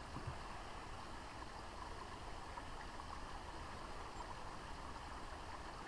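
Running water from a stream: a faint, steady rush.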